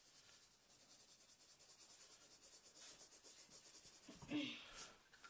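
Felt-tip marker hatching on paper: faint, quick scratching strokes, several a second. A short louder sound comes about four seconds in.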